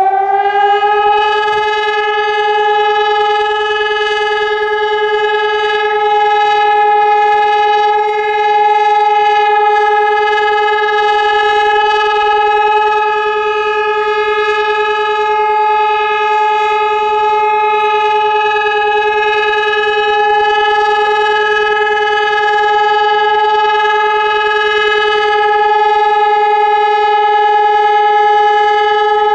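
Civil defence siren sounding one long steady tone, held at full pitch after winding up: the all-clear (Entwarnung) signal of a siren test.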